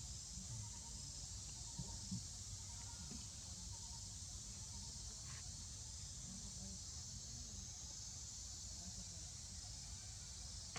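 Faint outdoor ambience: a steady high insect drone with a low rumble beneath it.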